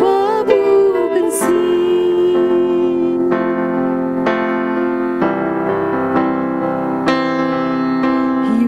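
A woman's solo voice finishes a sung phrase about a second in. A keyboard with a piano sound then plays an instrumental interlude of held chords, changing about once a second. The voice comes back in near the end.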